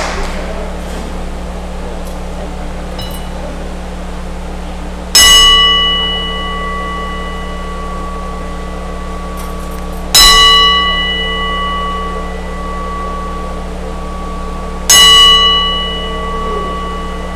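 Wrestling ring bell struck three times, about five seconds apart, each strike ringing out and slowly fading: part of a ten-bell salute.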